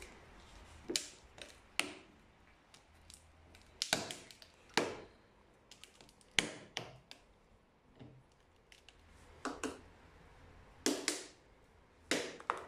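Coconut shell clamped in a vise being struck and pried along its crack with a metal tool: a string of sharp, irregular knocks and cracks as the hard shell splits open.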